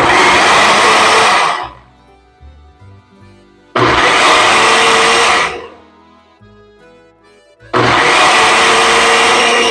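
Countertop blender run in three short pulses of about two seconds each, puréeing roasted tomatoes and vegetables into sauce; the last pulse runs on past the end.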